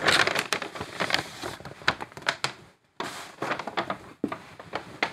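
Kraft paper shopping bag rustling and crinkling as it is handled, in dense crackles with sharp ticks, breaking off for a moment about halfway through.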